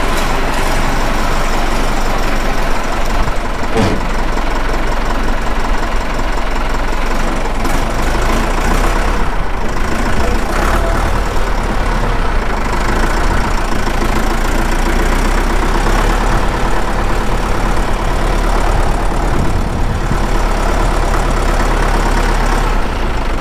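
Deutz Intrac 2003 tractor's diesel engine running steadily at low revs while the tractor drives slowly.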